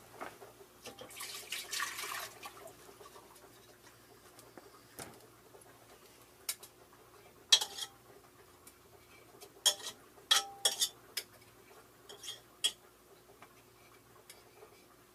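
Metal candle mold and wax pot being handled as the remaining melted wax is dumped out of the mold: a brief rushing sound about a second in, then scattered sharp metallic clinks and knocks in the second half.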